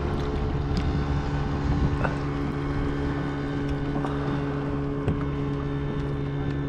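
A boat motor running steadily at one unchanging pitch, with wind rumbling on the microphone.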